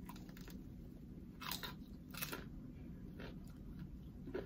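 Bites into a crispy Nashville hot fried chicken tender and chewing: two loud crunches about a second and a half and two seconds in, then softer crunches as it is chewed.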